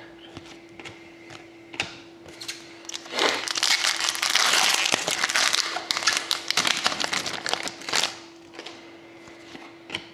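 Foil-lined wrapper of a hockey card pack being torn open and crinkled by hand: a loud crackling rustle lasting about five seconds, starting about three seconds in. A few light clicks come before it.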